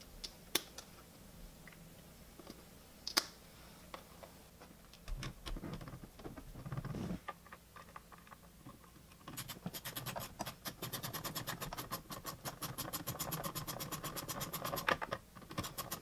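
Hand-tool work on a car's steering wheel: a few scattered clicks and knocks, then, from about nine seconds in, some six seconds of fast, even clicking from a hand ratchet turning a fastener.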